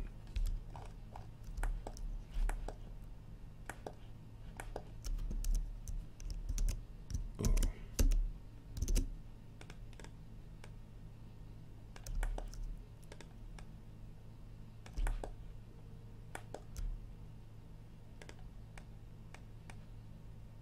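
Computer keyboard keys and mouse buttons clicking in irregular clusters, over a steady low hum.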